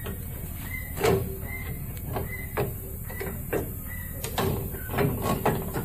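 Metal suspension parts knocking and clunking as a Toyota Tacoma's front strut assembly is worked loose by hand, with several separate knocks, the loudest about a second in and near the end, over a steady low hum.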